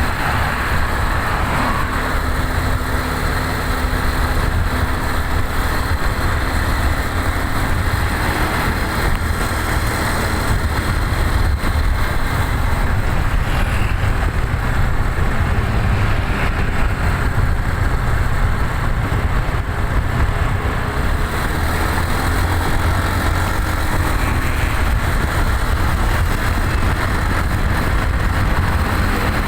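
Vehicle engine running steadily: a constant low rumble with road noise, and no horn.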